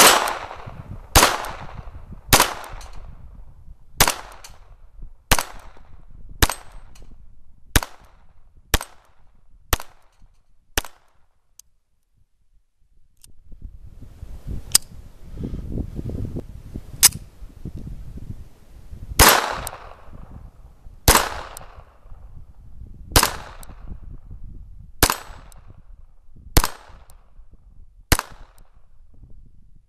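Ruger SR22 pistol firing .22 LR tracer rounds in quick succession, roughly one shot a second, with the action cycling on every shot. Ten shots are followed by a pause of a few seconds near the middle, then a second string of eight shots.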